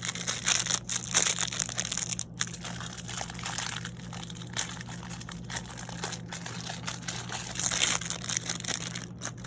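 A mini figure's packaging crinkling and crackling as it is handled and opened by hand, loudest at the start and again near the end.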